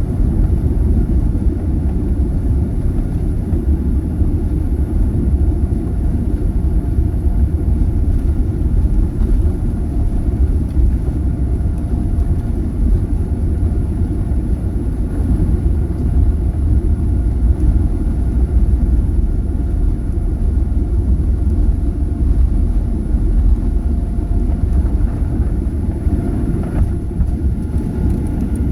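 Airliner on takeoff: a loud, steady low rumble of engines and rushing air, with faint steady whine tones above it.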